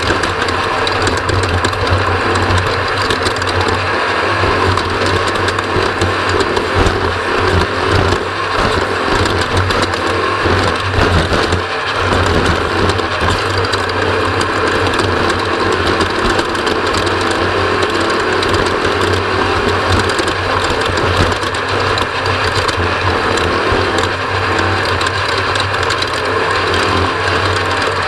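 Off-road race vehicle running flat out, heard from on board: a steady engine drone with dense rattling from the chassis over rough ground.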